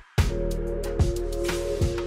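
Background music with a steady drum beat, starting after a brief moment of silence.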